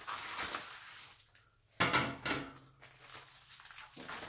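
Packaging rustling as a wrapped plastic protective plate is lifted out and handled, with a sudden knock a little under two seconds in, then quieter rustling.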